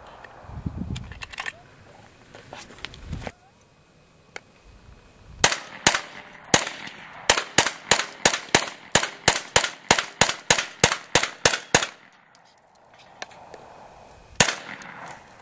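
Kel-Tec Sub-2000 carbine in .40 S&W fired semi-automatically in a rapid string of about twenty shots, roughly four a second, starting about five seconds in, followed by one more shot near the end.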